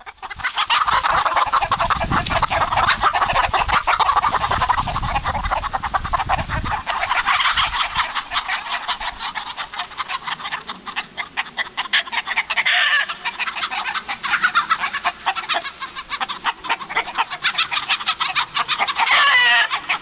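Chickens clucking rapidly and without pause, many calls overlapping, with a low rumble under them for the first several seconds.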